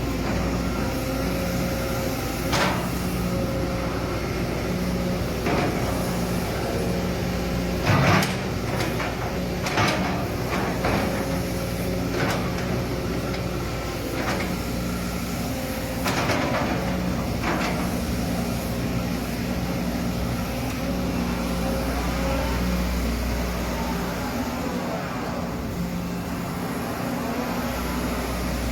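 A new engine on its test run, idling steadily with a low hum, with scattered clanks and knocks over it, the loudest about eight seconds in.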